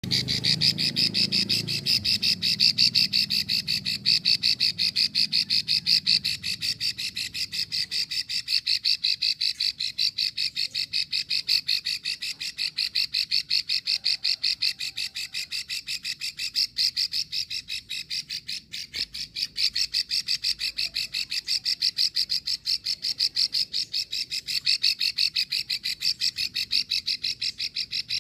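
A female plain prinia (prenjak sawah) giving its long 'ngekrek' call: a rapid, even rattle of clicking notes, about six or seven a second, kept up without a break. This is the female call that bird-keepers play to prompt males to sing.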